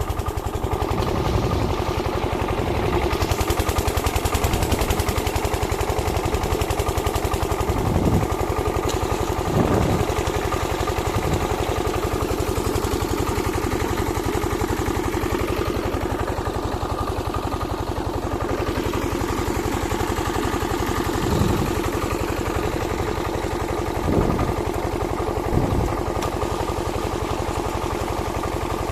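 A small engine running steadily at an even idle-like pace, with a few short low thumps over it.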